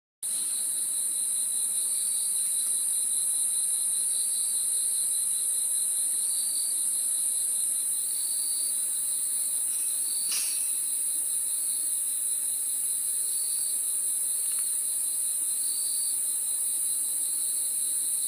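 Steady, high-pitched insect chorus with a fainter chirp repeating about every two seconds and a single tick about ten seconds in. It starts and cuts off abruptly.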